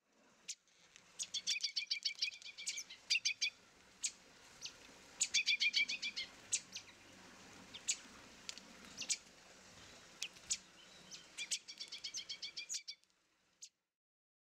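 Songbirds chirping: quick trills of chirps about a second long, repeated several times, with single sharp chirps in between, over a faint steady hiss. The birdsong cuts off shortly before the end.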